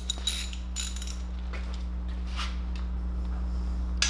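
A few scattered, irregular metallic clicks of a hand ratchet and tools being handled, over a steady low hum.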